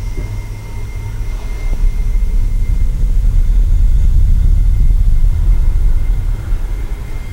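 A deep, low rumble that swells from about two seconds in to its loudest in the middle and then eases off, over a faint steady high tone.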